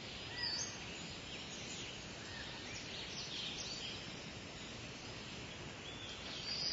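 Faint outdoor nature ambience: birds chirping in short high calls over a steady hiss. Near the end a steady high insect trill comes in.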